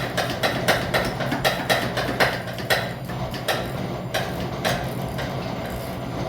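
ICON hand ratchet clicking as a fastener is worked: a quick, even run of about four clicks a second that thins out about three seconds in to a few scattered clicks.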